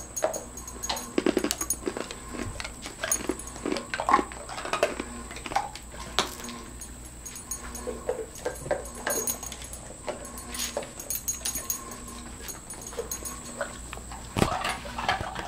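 Dogs whining and whimpering in short, irregular calls while begging for ice, with scattered brief clicks among them.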